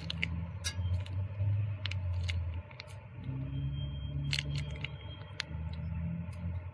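A tube of oil additive being squeezed and crinkled by hand, giving scattered sharp clicks and crackles, over a steady low rumble.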